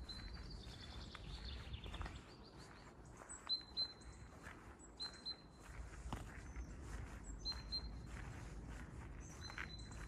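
Small birds calling: short high whistled notes every second or two, with a quick falling trill near the start. Behind them is steady low background noise with scattered faint ticks.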